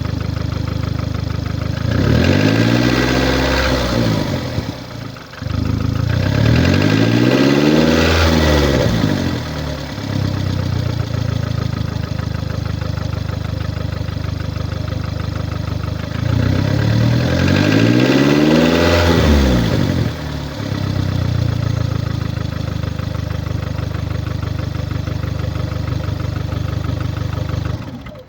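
2009 VW Golf Mk6's 1.4 TSI four-cylinder petrol engine (CAXA) idling and revved up and back down three times, each rev lasting a few seconds. The owner attributes its running noise to a defective cylinder head gasket.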